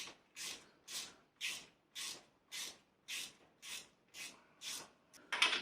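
Ratchet wrench worked in short back-and-forth strokes, about two a second, backing out the timing chain tensioner on a Saab 16-valve engine to take the tension off the chain. A louder, longer stroke comes near the end.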